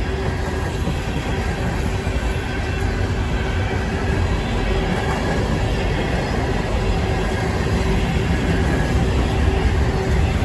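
Empty Herzog rock hopper cars of a freight train rolling past at speed: a steady rumble and rattle of wheels on the rails, with a thin steady tone over it.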